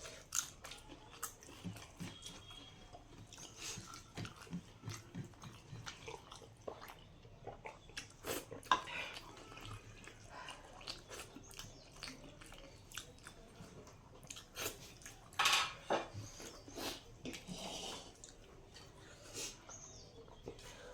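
Close mouth sounds of a person eating duck curry: chewing, smacking and small clicks, with a few louder bursts about eight seconds in and again around fifteen seconds.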